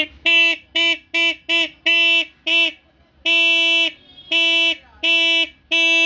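Repaired 12-volt motorcycle disc horn beeping on one steady pitch as its wire is touched to the battery terminal. It gives about seven quick toots, then four longer blasts, the last held for about a second. The horn has been reset by tightening its adjustment nut, which the repairer says removes its hoarse rasp.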